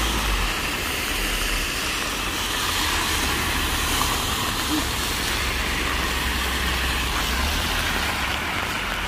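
Cars driving one after another through standing floodwater, their tyres hissing and spraying water, over the steady noise of heavy rain, with a low rumble underneath.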